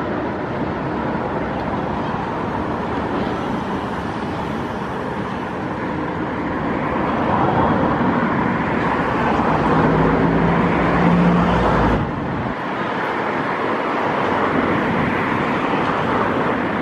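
Steady road traffic noise. About ten seconds in a road vehicle's low rumble and hum swells, then cuts off suddenly.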